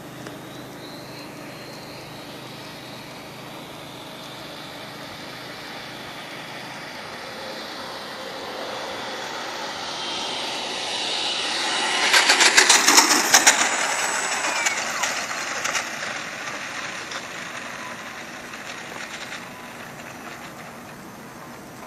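Multi-blade electric ducted fan of a Freewing F-16 RC jet, whining like a small turbine as the plane comes in low to land. It grows louder, is loudest with a crackly edge a little past halfway as it passes close, then fades as it rolls away down the strip.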